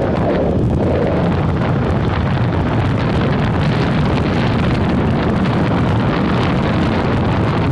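Steady wind rushing over the microphone on a moving motorbike, with engine and road noise underneath.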